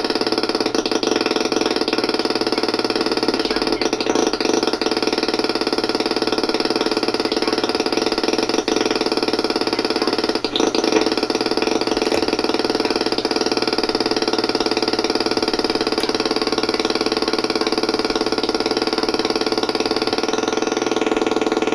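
Modded MFOS Echo Rockit analog delay self-oscillating through a small amp: a dense, steady feedback drone of many stacked tones, thin in the bass, shifting slightly as its knobs are turned.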